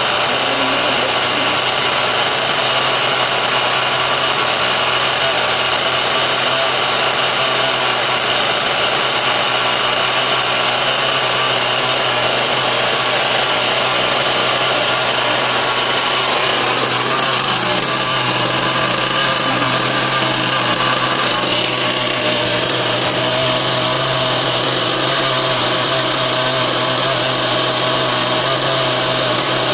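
Small glow-fuel (nitro) engine of a remote-control car running steadily as it is warmed up, set a bit rich. Its tone changes slightly a little past halfway.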